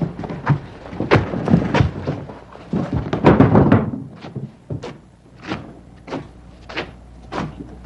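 A run of dull thumps and knocks, thickening into a busy cluster about three seconds in, then settling into single thumps roughly two thirds of a second apart.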